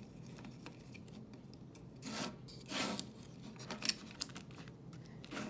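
Plastic case halves of a Dewalt 12 V Max battery pack rubbing and scraping as they are pressed together by hand, with a few light clicks in the second half.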